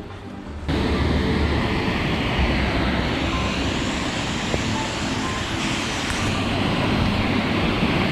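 Steady rush of a waterfall's falling water, cutting in suddenly about a second in, with faint background music beneath it.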